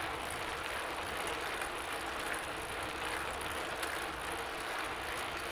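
Bicycle being ridden: a steady whir of tyres and drivetrain with soft swells roughly every second.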